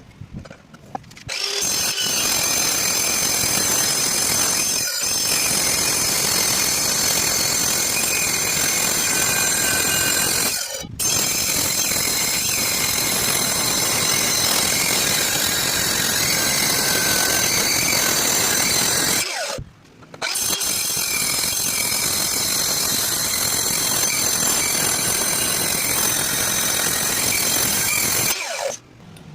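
Electric circular saw running at full speed and cutting, a loud steady noise with a high whine. It drops out briefly twice in the middle.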